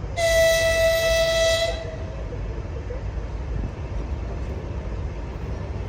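TEM18DM shunting diesel locomotive sounding one horn blast of about a second and a half, a single steady tone, over a steady low rumble.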